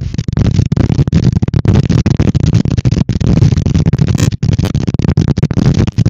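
Strong gusty wind blowing across an outdoor camera microphone, a loud low rumble that flutters and breaks up constantly.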